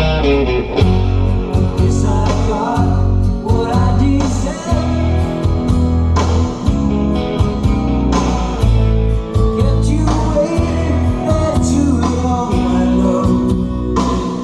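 A song with singing and guitar, with strong pulsing bass notes, played over a Harman Kardon car audio system from a phone streaming over Bluetooth, heard inside the car's cabin.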